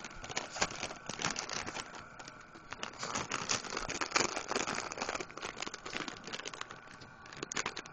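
Plastic dog-treat bag crinkling in quick, irregular crackles as a pug roots into it and tears at it with its mouth.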